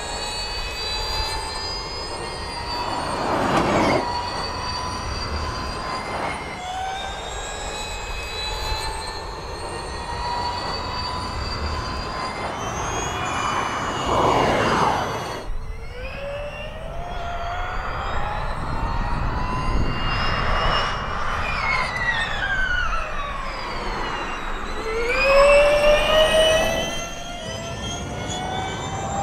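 Porsche 99X Electric Formula E car's electric drivetrain whining over tyre noise. The whine rises in pitch as the car accelerates and falls as it slows, over several pass-bys, the loudest a rising pass near the end.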